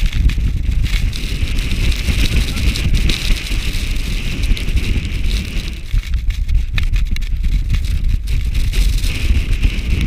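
Strong storm wind buffeting the camera microphone: a loud, gusting low rumble with a steady hiss above it, easing slightly about six seconds in.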